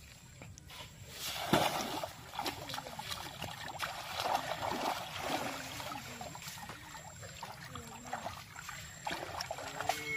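Water sloshing and splashing as two people wade into a shallow pond and push a bamboo-framed scoop net through it, in irregular splashes, the loudest about a second and a half in.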